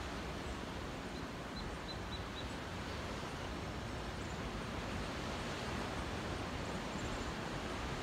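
Steady noise of wind and distant ocean surf, with a run of five faint, high bird chirps a little over a second in.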